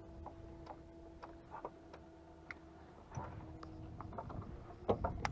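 Scattered light ticks and knocks from fishing tackle and the aluminium boat hull, over a faint steady hum that stops about four seconds in; a few sharper knocks come near the end.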